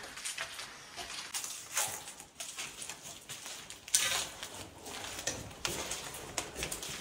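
Footsteps scuffing and crunching irregularly over a gritty floor, with a sharper crunch about four seconds in.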